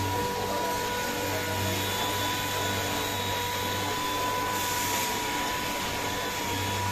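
Orbital sander running steadily against a car door panel, sanding down primer and body putty: an even whine over a hiss, with no change in speed.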